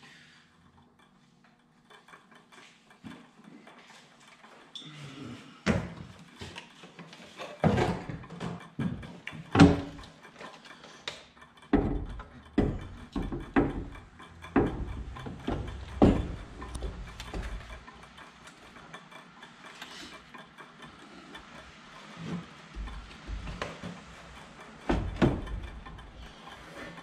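Irregular metal clanks and knocks as a Kawasaki V-twin engine is set down into a John Deere Z810A zero-turn mower's frame, with a rattle from the fuel gauge float inside the mower's fuel tank.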